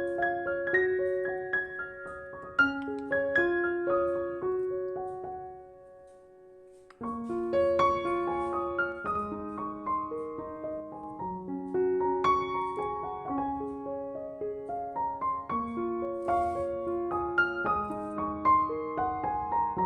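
Background piano music, a gentle melody of sustained notes. It fades out about five seconds in and starts again about seven seconds in.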